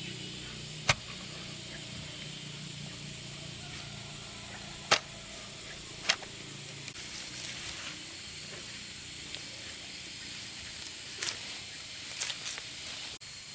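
Outdoor background with a steady high thin tone over a low hum, broken by a few sharp knocks or clicks, about five in all.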